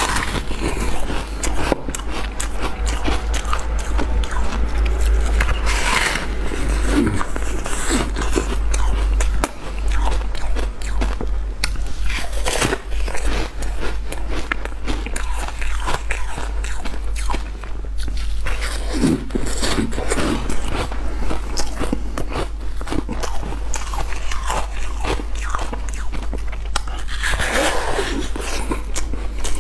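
Close-up crunching of frozen purple-coloured ice being bitten and chewed, a dense run of sharp cracks and crackles with heavier bites every several seconds, over a steady low hum.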